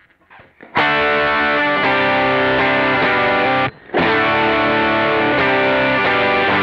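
Electric guitar played through the Kemper Profiler's Green Scream drive, its model of the Ibanez Tube Screamer, with the drive turned fully up: loud, sustained overdriven chords and notes. A few quiet picked notes come first, the full playing starts just under a second in, and it breaks off briefly at about four seconds.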